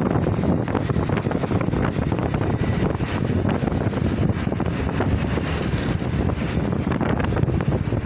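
Wind buffeting the microphone of a phone filmed from a moving vehicle, over a steady rush of road and traffic noise.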